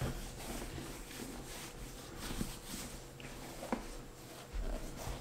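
Bare hand rubbing wax boot grease into a leather work boot: soft, uneven rubbing and scuffing, with a couple of light clicks and a low bump near the end as the boot is handled.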